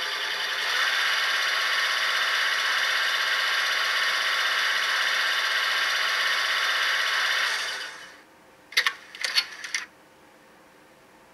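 ESU digital sound decoder in an HO-scale BR 232 'Ludmilla' model locomotive, playing one of its factory sound functions through the model's small speaker. A steady mechanical whirr runs for about eight seconds and then fades out, followed by a few short, sharp noises about a second later.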